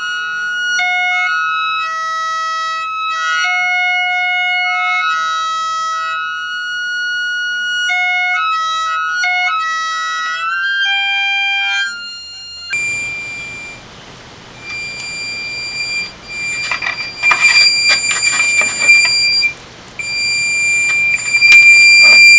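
Electronic tone circuit driving a multilayer piezo speaker taped to Paulownia wood: plain, unmodulated steady tones in a harmonica-like range, a rising glide at the start, then tones stepping between pitches. About halfway through a single high tone takes over, with bursts of buzzy rattle as the taped-on speaker buzzes against the wood, loudest near the end.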